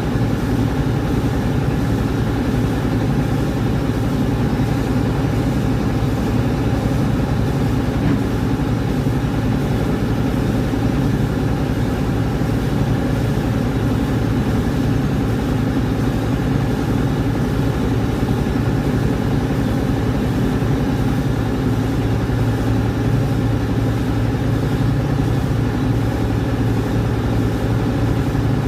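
Rice huller machine running steadily, a constant machine hum with no change in speed.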